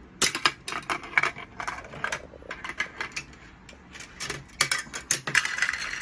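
1999 Mouse Trap board game contraption running its chain reaction: a metal ball and plastic parts clattering through the stairs and chutes. It makes a rapid, irregular run of sharp clicks and rattles.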